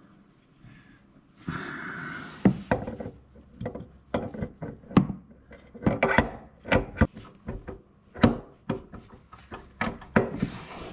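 A Vespa PX200 engine's clutch assembly being worked onto its crankshaft by hand: a short scraping rub, then a run of irregular sharp clicks and knocks as it is wiggled over the Woodruff key and pushed into place.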